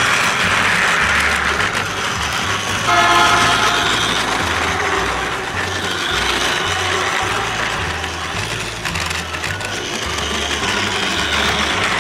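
Battery-powered Plarail toy train running along plastic track, its small motor and gears whirring steadily and wheels rattling on the rails. A brief pitched tone sounds about three seconds in.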